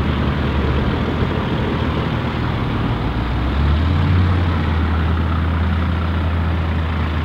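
GINAF multi-axle truck's diesel engine running steadily as it drives slowly through soft beach sand carrying a beach house. The deep engine note grows louder about halfway through as the truck comes past.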